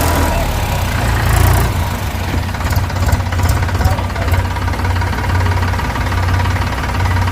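Heavy diesel engine of the backhoe loader or tractor running steadily with a deep low rumble. A few light clicks or knocks come about a second and a half in and again around three to four seconds in.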